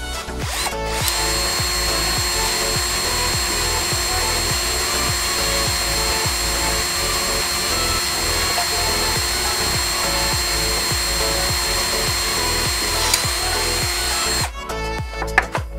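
Bosch cordless drill boring a 9 mm hole through a white plastic cover with a twist bit. A steady motor whine starts about a second in and stops shortly before the end.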